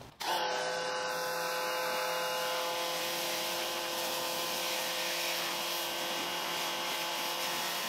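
Wholesun electric pressure washer running steadily, its motor and pump giving a constant whine under the hiss of the high-pressure spray from the stock 2.6 nozzle, at about 900 PSI and 1.4 gallons per minute. It starts suddenly just after the start.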